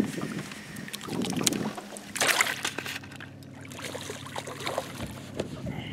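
Water splashing and sloshing at the side of a boat as a released smallmouth bass is dropped back into the lake, with the loudest splash a little over two seconds in.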